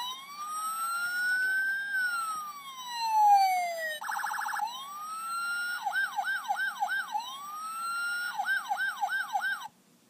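Electronic emergency-vehicle siren sound effect: a slow wail rising and falling, a brief rapid warble about four seconds in, then rising wails broken by fast yelping sweeps, cutting off suddenly near the end.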